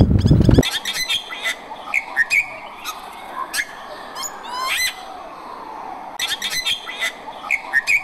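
Bali mynah calling: scattered sharp chirps and whistles, a quick run of rising notes near the middle, and bunched calls near the end. It opens with a loud, low, rapid pulsing sound that cuts off about half a second in.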